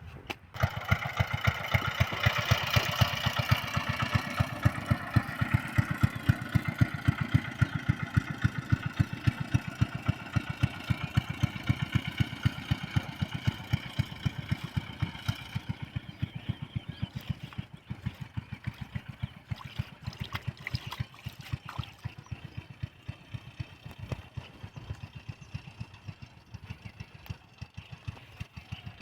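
A small engine starts up about half a second in and keeps running with an even, rapid putter. A higher whine rides over it and fades out about halfway through.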